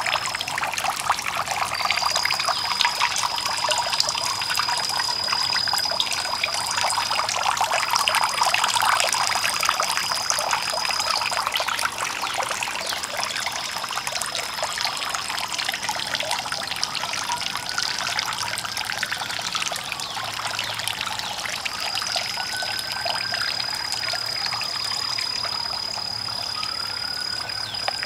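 Water splashing and trickling steadily from a tiered garden fountain.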